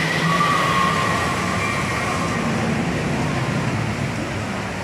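Steel roller coaster train rolling out of its loading station, a steady rumble with a faint high whine over the first couple of seconds.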